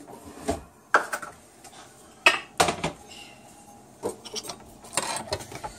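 Kitchen things being handled on a counter: a scattering of sharp clinks and knocks at irregular intervals, the loudest a little over two seconds in.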